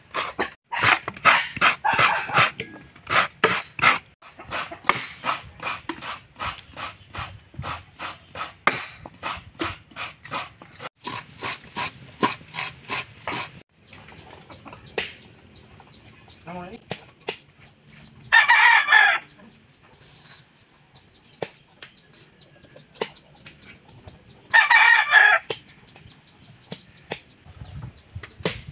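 A knife working coconut meat out of a halved coconut shell: quick, repeated scraping strokes, about three a second, through the first half. Then a rooster crows twice, about six seconds apart, each crow about a second long and the loudest sounds heard.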